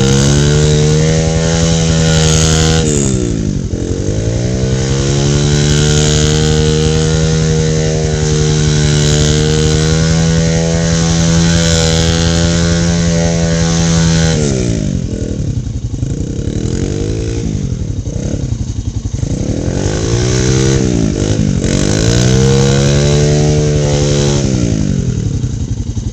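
Mini dirt bike's small single-cylinder engine revving hard and held at high revs as the bike spins donuts in the dirt, with a brief dip a few seconds in. About halfway through the revs fall away, then the engine is revved up and down several times before being held high again near the end.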